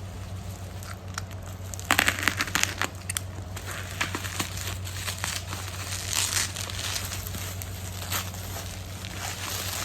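Packaging crinkling and rustling as it is handled and opened by hand, in irregular bursts that are densest about two seconds in, over a steady low hum.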